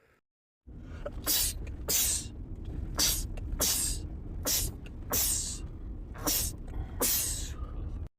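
A man sneezing in a rapid fit, about eight sharp sneezes in a row at uneven intervals, over a steady low rumble that cuts off abruptly near the end.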